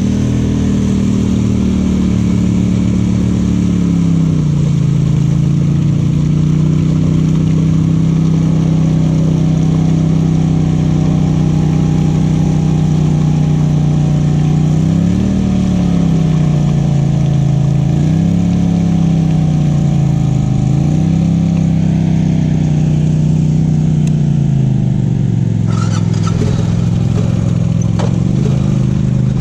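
Off-road vehicle engine running under throttle on a trail, its pitch holding steady for long stretches and rising and falling briefly several times as the throttle is worked. A few short knocks come near the end.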